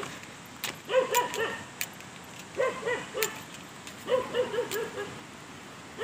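A dog barking in quick runs of three or four barks, a run about every second and a half, with a few sharp clicks in between.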